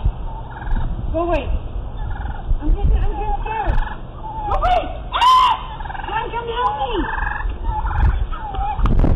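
Turkeys gobbling, one call after another, several at different pitches overlapping.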